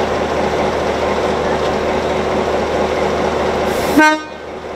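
Diesel shunting locomotive Y133 running steadily close by. About four seconds in comes a brief, loud pitched toot, after which the engine sound drops away sharply.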